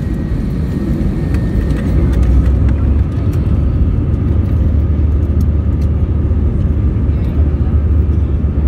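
Airbus A321 cabin noise heard from a window seat over the wing while taxiing: steady jet-engine rumble with the roll of the wheels on the taxiway. The low rumble grows louder about two seconds in, with faint rattles over it.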